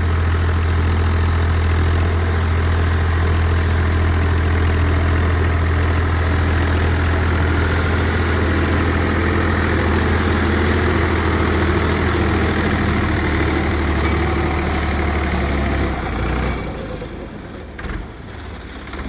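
Swaraj 855 tractor's diesel engine running steadily with a deep, even hum, sounding so light it seems to be running unloaded. About sixteen seconds in, the engine sound drops away sharply and grows much quieter.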